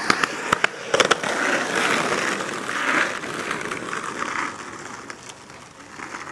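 Skateboard rolling down a concrete driveway and out onto asphalt. Several sharp clacks come in the first second or so, then a steady rolling rumble of the wheels that fades after about four and a half seconds.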